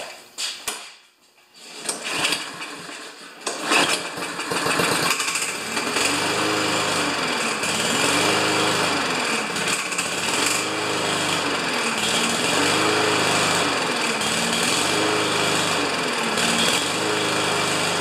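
Remington 140 cc push mower's small four-stroke engine sputtering into life about four seconds in, then running with its speed rising and falling about every two seconds: surging, with the carburetor suspected of being gummed up after sitting over the winter.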